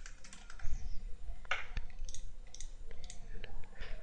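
Typing on a computer keyboard: a run of irregular keystroke clicks.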